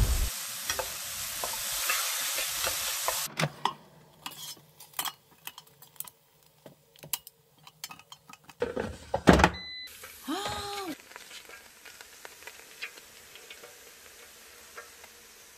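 Vegetables sizzling as they are stir-fried in a frying pan for about the first three seconds. Then come scattered clicks and knocks of metal tongs against an air fryer basket as lamb chops are turned, with a couple of louder thumps about nine seconds in and a brief wavering tone just after.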